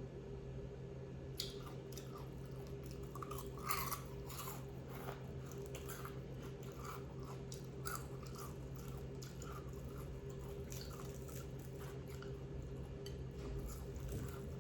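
Close-up chewing of crispy fried chicken: irregular crunches and wet mouth sounds, the loudest about four seconds in. A steady low hum runs underneath.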